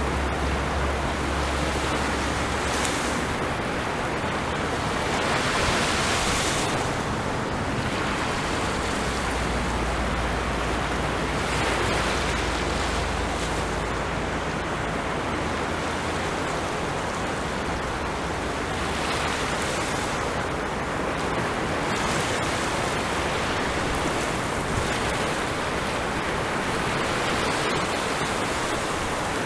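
Sea waves washing onto a beach, a steady hiss of surf that swells every few seconds as waves break.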